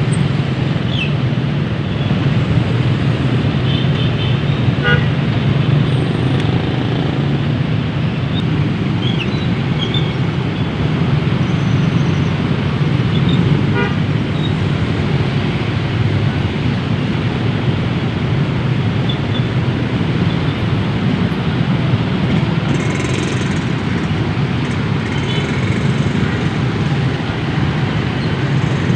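Dense city road traffic: a steady rumble of engines and tyres, with short horn toots sounding now and then.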